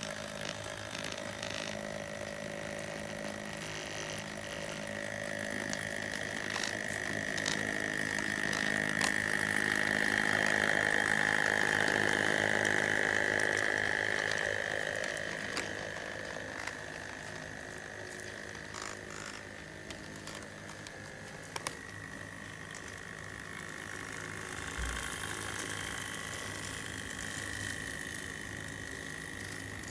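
Electric motor of an HO-scale Auscision B class model diesel locomotive running on the layout: a steady high-pitched motor whine that grows louder through the middle and then eases off, with a few sharp clicks from the wheels on the track.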